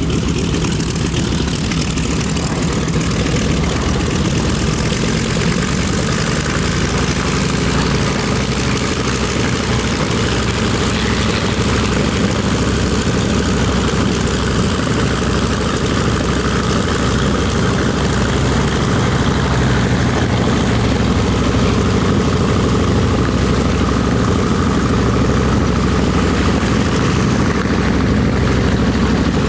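Boeing B-17G's four Wright R-1820 Cyclone nine-cylinder radial engines and propellers running steadily, a deep even drone with no clear rise or fall.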